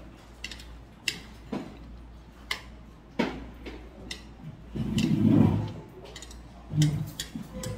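Metal chopsticks clicking against a plate several times as food is picked up, with a louder, low muffled noise about five seconds in.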